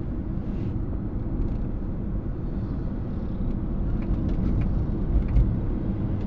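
Road and tyre noise of a Toyota Prius in motion, heard inside the cabin: a steady low rumble, with a few faint ticks a few seconds in.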